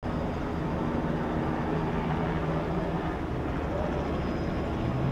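Steady low engine drone with a constant hum, unchanging throughout.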